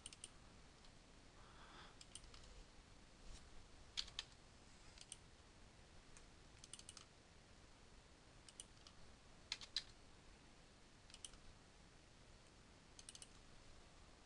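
Faint computer mouse clicks, several in quick double-click pairs, coming every second or two as images are picked and placed.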